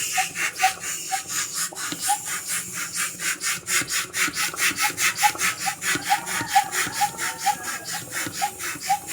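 Hand balloon pump worked quickly: a fast, even run of airy rasping strokes, about five a second, with small squeaks from the pump along the way.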